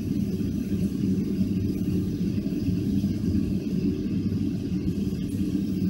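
Boeing 757-200 cabin noise heard from a window seat behind the wing: a steady low rumble of the jet engines running at idle, with no change in pitch.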